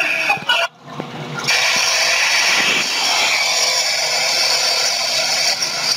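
Steady road noise of a vehicle driving, a hiss of tyres and wind, that starts after a brief break about a second and a half in.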